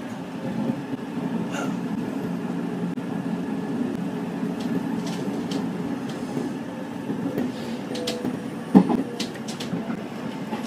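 Nankai Koya Line electric commuter train running at speed, heard from inside the driver's cab: a steady low rumble of wheels on rail with scattered clicks. There is one sharp, loud knock about nine seconds in.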